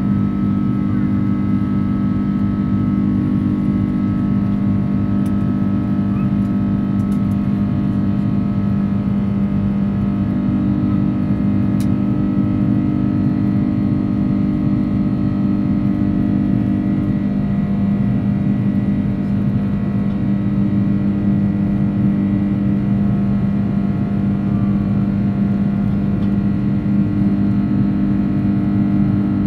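Airbus A330's turbofan engines droning steadily, heard inside the passenger cabin: a deep, even hum with several steady whining tones above it.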